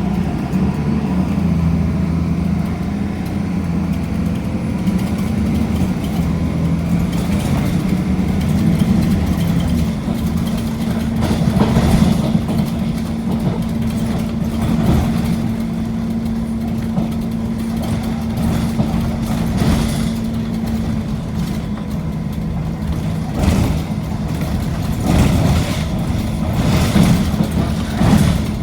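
Diesel bus engine running, its note held steady for long stretches, with repeated short knocks and rattles over it.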